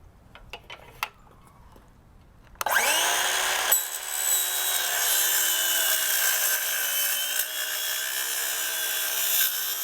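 Power saw starting up about two and a half seconds in, its pitch rising as the blade spins up, then cutting through a screen track with a steady, loud, high whine.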